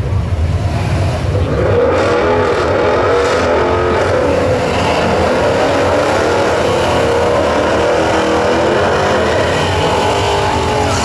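Drag cars doing burnouts: engines held at high revs with a wavering pitch while the rear tyres spin and smoke.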